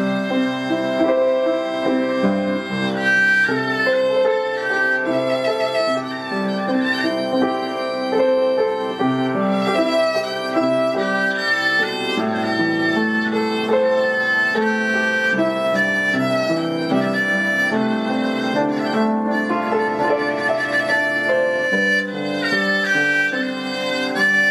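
Instrumental background music, a violin carrying the melody over a lower accompaniment.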